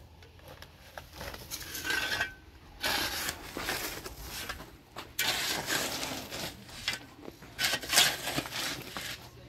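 Clattering and scraping of hard objects being handled, with scattered sharp clicks and a louder knock about eight seconds in.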